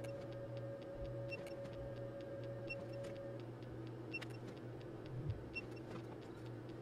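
Surge generator firing 2.5 kV transients into a Hioki DT4252 multimeter: faint sharp ticks about every second and a half over a steady low electrical hum. A faint steady tone in the hum stops about halfway through.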